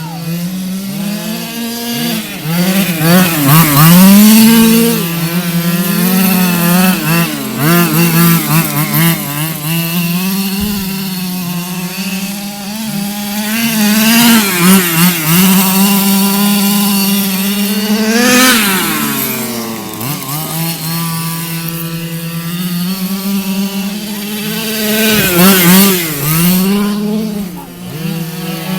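Radio-controlled car's motor buzzing steadily and revving up and down again and again as the throttle is worked.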